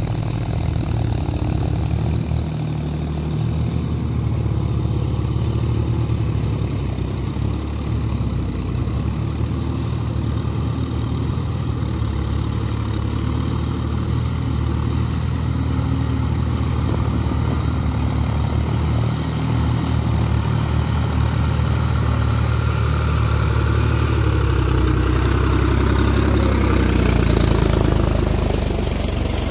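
John Deere tractor's diesel engine running steadily as the tractor pulls through the field on cage wheels. It grows louder as the tractor comes close in the last few seconds.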